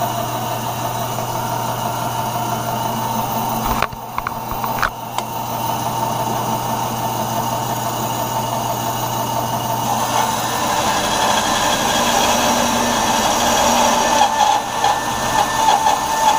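Bandsaw running with a half-inch, 4-teeth-per-inch Timber Wolf blade. Over the steady motor and wheel hum, a couple of knocks come about four seconds in. From about ten seconds in the blade is resawing a block of cherry, adding cutting noise that grows louder and more uneven toward the end.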